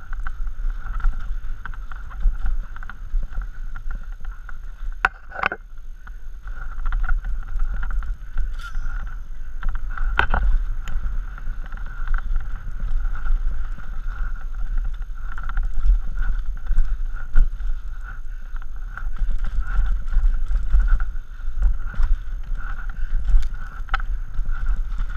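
Mountain bike descending a rocky dirt trail at speed: wind buffeting the camera microphone over tyre noise and the bike's rattle, with sharp knocks from rocks and bumps, the clearest about five and ten seconds in.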